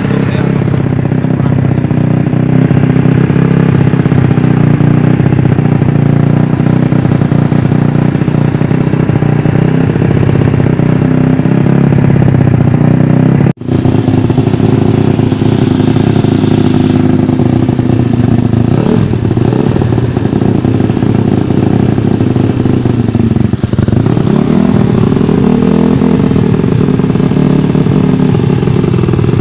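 Yamaha Vega ZR motorcycle engine, bored up to 160cc, running steadily through a C2speed silent-type exhaust, with a couple of light throttle blips a little past the middle. The sound cuts out for an instant about halfway through.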